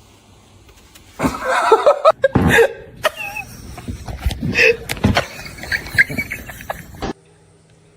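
Laughter in loud bursts, starting about a second in and cutting off abruptly about seven seconds in.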